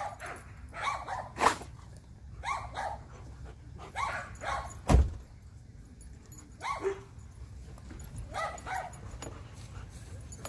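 Pet dogs, a Siberian husky and an Alaskan malamute, giving a string of short barks and whines. There is a single sharp knock about five seconds in.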